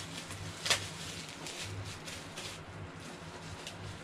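Plastic wrapping crinkling and rustling as a boxed Funko Pop figure is unwrapped by hand, with one sharp crackle about a second in.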